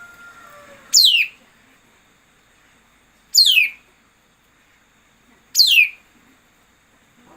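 A songbird giving three sharp, steeply descending calls about two and a half seconds apart, played as a lure call for trapping birds.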